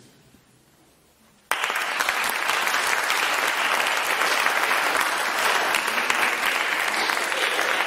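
Audience applauding after a brief hush. The clapping starts suddenly about a second and a half in and then keeps going at an even level.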